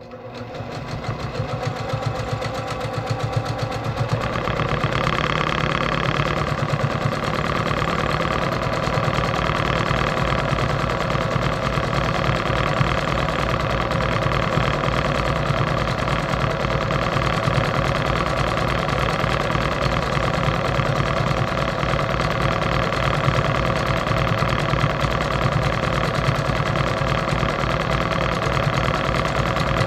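Brother PQ1500SL straight-stitch sewing machine stitching through a quilt sandwich during free-motion quilting. It starts up and gathers speed over the first few seconds, then runs steadily at a fast, even stitching rate.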